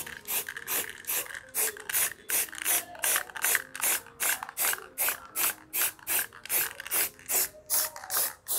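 Aerosol spray-paint can hissing in short, rapid bursts, about three a second.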